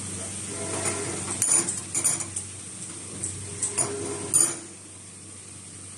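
Metal parts clinking and clattering in a string of sharp knocks, the loudest about four seconds in, over a steady machine hum.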